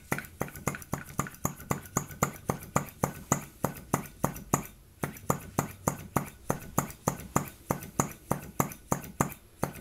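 PM Research Solar Engine #3, a small flame-eater model engine, running on its own with its flywheel spinning, just started and still warming up. It makes a regular sharp clicking, about four clicks a second.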